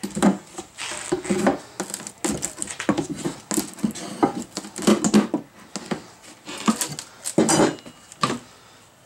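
Cardboard box and packing material being handled and opened: a string of rustles, scrapes and light knocks.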